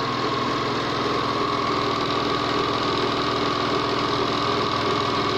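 Okurma 620-F three-thread overlock machine running steadily at speed, a fast even whirr of needle and knife strokes with a steady high hum over it.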